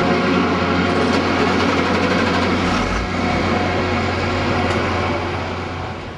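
Snow groomer's diesel engine running steadily with a low hum under a broad mechanical din, which falls away near the end.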